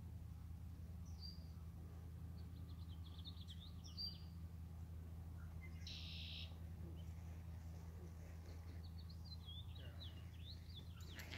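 Songbirds chirping and trilling in short high calls, scattered through, with a brief buzzy trill about six seconds in, over a faint steady low hum.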